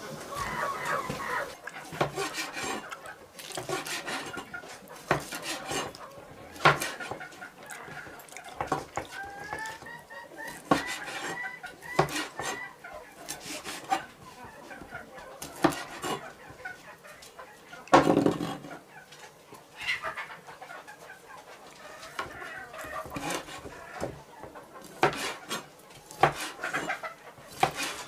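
Chickens clucking and calling, amid repeated sharp knocks and clinks; one louder knock comes about two-thirds of the way through.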